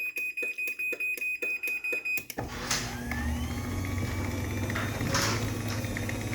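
Rapid even ticking, about five a second, over a steady high tone; about two seconds in it gives way to an electric garage door opener motor running with a steady low hum.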